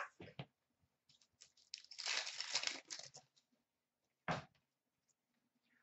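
A 2014-15 Upper Deck Series 2 hockey card pack wrapper being torn open and crinkled for about a second and a half, followed a little later by one short tap.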